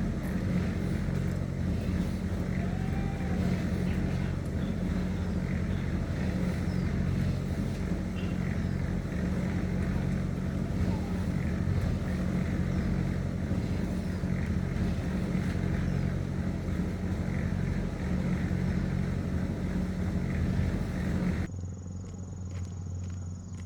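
Motorbike engine running at a steady speed. It cuts off abruptly near the end to a quieter low hum.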